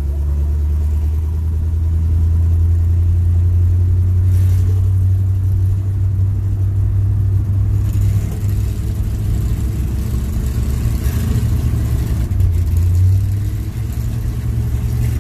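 A 1967 Chevy C10 pickup's engine running as the truck drives slowly, heard from inside the cab: a steady, loud low rumble.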